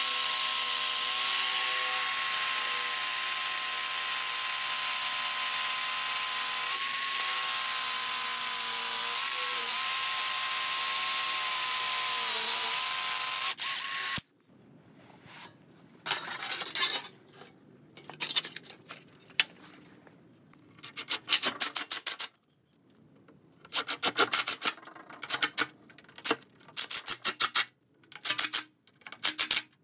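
A power drill with a masonry bit boring steadily into a concrete pier, its motor whine dipping in pitch a few times under load and cutting off suddenly about halfway through. After a short pause, a DeWalt cordless impact driver runs in short stop-start bursts, driving Tapcon masonry screws through a wooden ledger board into the concrete.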